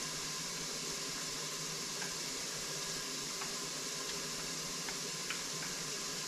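Steady sizzle of chopped bacon frying and rendering its fat in an Instant Pot on the sauté setting, with a few faint light clicks of a spoon stirring in a glass measuring cup.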